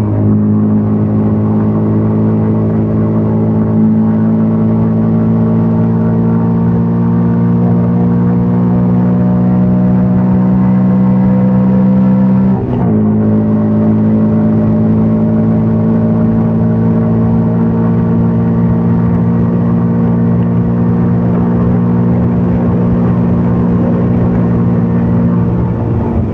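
CFMOTO Papio 125 mini-bike's single-cylinder four-stroke engine running under way, its note climbing slowly as the bike gathers speed. About halfway through, the pitch breaks and drops sharply, a gear change, and the engine then runs on steadily in the next gear.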